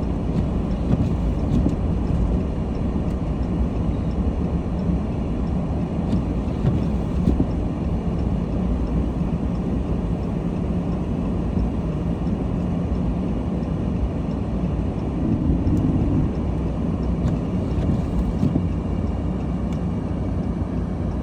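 Steady low rumble of a car driving on snowy roads, engine and tyre noise heard from inside the cabin, swelling briefly about fifteen seconds in.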